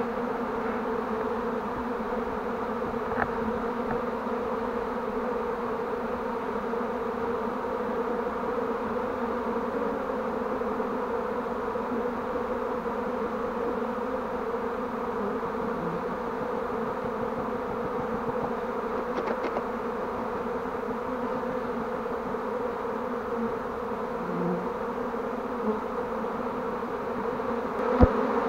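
A swarm of honeybees buzzing steadily at close range, one dense even hum from many bees flying and clustering on a swarm box. A single brief knock just before the end.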